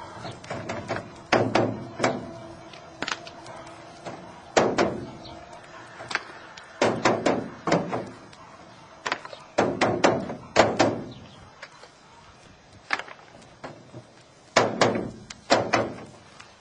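Wooden beehive frames being knocked against the metal steam wax melter to shake off melted comb residue: irregular knocks and bangs, some in quick runs, several with a short metallic ring.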